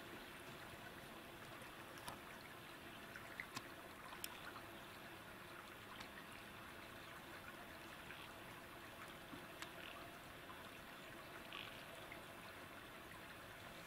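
Near silence: faint steady hiss of outdoor ambience, with a few small clicks about two to four seconds in.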